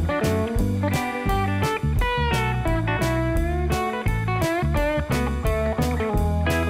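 Instrumental background music led by an electric guitar with bending notes, over a steady beat.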